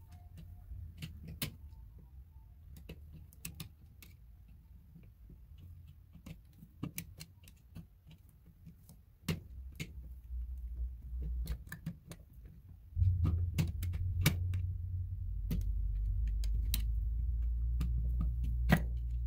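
Irregular small metallic clicks and taps of an old electrical outlet receptacle and its wires being worked with a tool while the wires are pulled free. About 13 s in, a steady low rumble starts and continues under the clicks.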